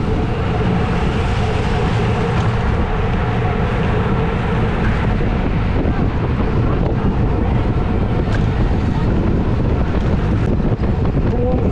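Steady wind buffeting on a bike-mounted action camera's microphone at race speed, mixed with the rolling rumble of a road bike riding in a bunch.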